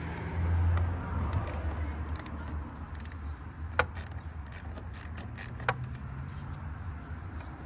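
Light metallic clinks and clicks of hand tools and battery-cable hardware being handled, with two sharper ringing ticks about four and six seconds in, over a steady low hum.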